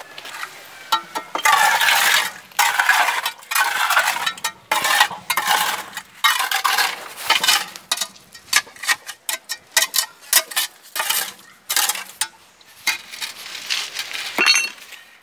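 Irregular scraping and rubbing against a cement wall inside a concrete manhole, with a few sharp clinks.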